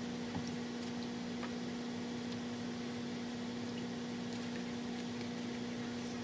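A steady low electrical hum with a fainter higher tone above it, over a soft hiss. A few faint clicks come in the first two seconds.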